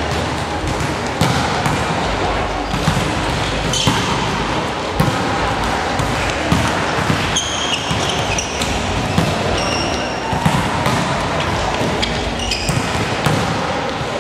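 Volleyballs being hit and bouncing on the court during a team warm-up, a steady scatter of sharp irregular ball thuds with players' voices underneath and a few short high squeaks.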